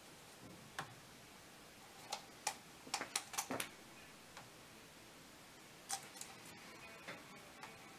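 Scattered light clicks and taps of a paintbrush knocking against a plastic cup of paint, with a quick run of taps about three seconds in.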